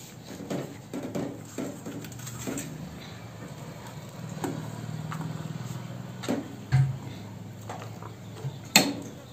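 Light clinks and knocks of a steel plate and serving spoon as food is dished out, with a sharper knock near the end and a faint low hum in the middle.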